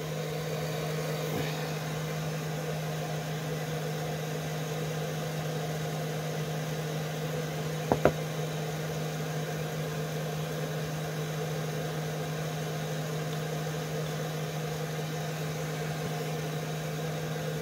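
Steady low electric motor hum, with one short sharp snip about eight seconds in as cutting pliers bite through a small piece of rubber heel-cap material.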